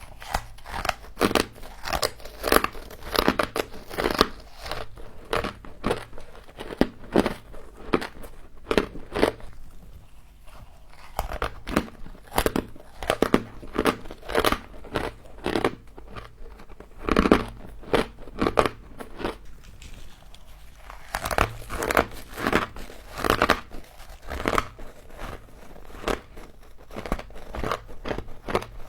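Close-miked crunching of frost being bitten and chewed, in quick, dense runs of crunches several a second, with two brief pauses along the way.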